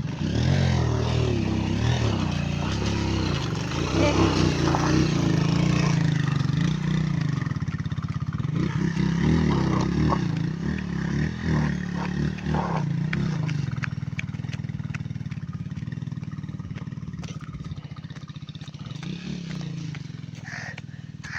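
Small motorcycle engine running and revving up and down while riding a rough road, with clattering rattles. It eases off about two-thirds of the way through and runs lower and steadier, with scattered knocks.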